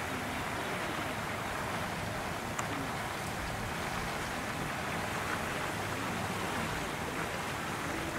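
Steady, even outdoor background hiss with no distinct event.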